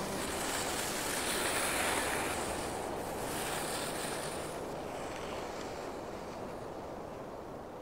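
Wind blowing over the mountains, a steady rushing that swells in the first few seconds and then slowly fades away.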